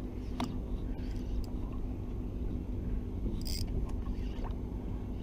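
Evinrude E-TEC outboard motor idling: a steady low rumble with a faint hum. A few small clicks and a brief rattle from handling the lure, about half a second and three and a half seconds in.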